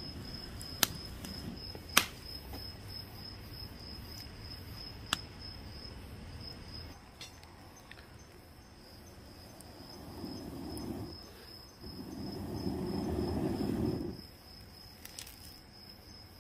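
Crickets chirp steadily throughout while a wood campfire crackles, giving a few sharp pops in the first several seconds. Past the middle come two rushing gusts of air blown through a metal blow pipe into the embers to make the fire flare, the second longer and louder.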